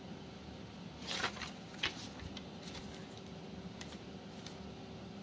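Soft handling noises: a short rustle about a second in, then a sharp click and a few faint ticks, over a faint steady hum.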